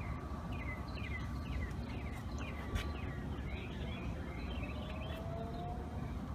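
A small bird chirping: a quick series of short, falling chirps, about two a second, through the first half, over a steady low rumble.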